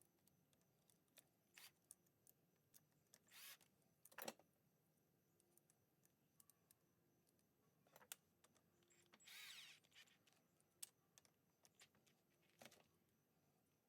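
Mostly quiet, with sparse faint clicks and light taps of small engine parts and hand tools being handled during engine assembly. There is one sharper click about a third of the way in and a brief scrape or rustle about two-thirds through.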